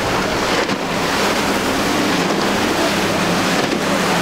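Rushing spray and waves from a fast outboard-powered center-console boat running through choppy inlet water, with a steady low outboard engine drone underneath and wind noise on the microphone.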